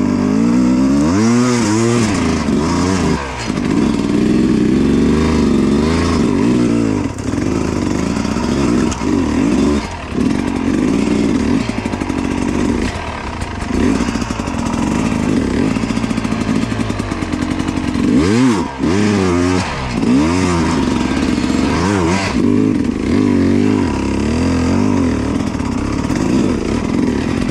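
Dirt bike engine revving hard and unevenly, the pitch rising and falling with repeated throttle blips as the bike picks its way over rocky terrain, with sharp quick revs about a second in and again around two-thirds of the way through.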